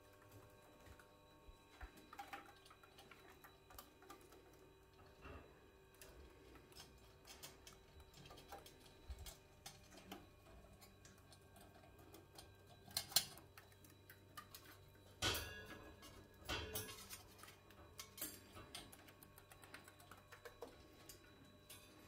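Faint, scattered clicks and taps from cockatiels pecking seed and nibbling at metal utensils in a dish rack, with a few louder knocks in the second half.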